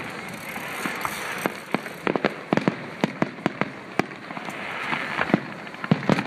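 Aerial fireworks shells bursting in a rapid, irregular run of sharp bangs, several a second, over a continuous background noise.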